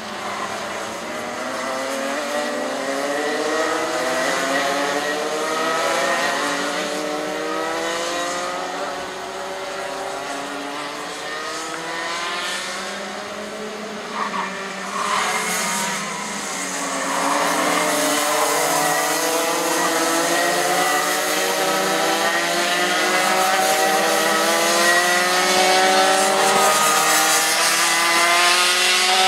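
Several two-stroke racing kart engines running on track at once, each pitch rising again and again as the karts accelerate and dropping as they back off, the engines overlapping one another. Louder from a little past halfway as the karts come nearer.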